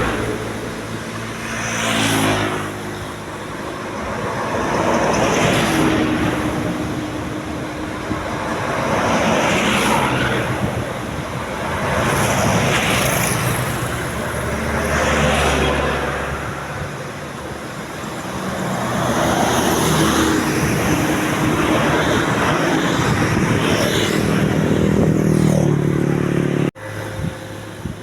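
Road traffic: a string of vehicles passing one after another, each swelling up and fading away over a few seconds, with a low engine hum underneath. The sound cuts off suddenly near the end.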